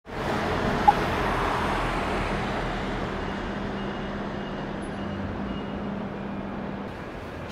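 Street traffic noise, loudest in the first couple of seconds and slowly fading, over a steady low hum. A short sharp blip comes about a second in, and faint on-off beeping in the middle.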